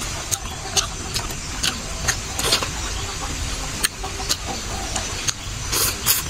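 Eating noodle soup: a metal spoon and chopsticks clinking and scraping against a ceramic bowl in a string of short sharp clicks, then a slurp of noodles about six seconds in, over a steady low rumble.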